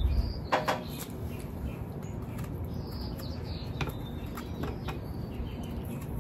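Small birds chirping intermittently over a steady low background hum, with a few light clicks and scrapes from a peeler working on a mango.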